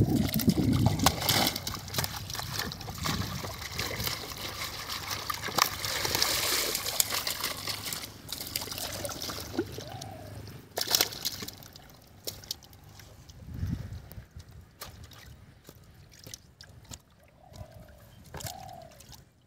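Pond water sloshing and trickling as a plastic basket of fish is dipped and rinsed in it. The sloshing eases about halfway through, leaving scattered small splashes and clicks.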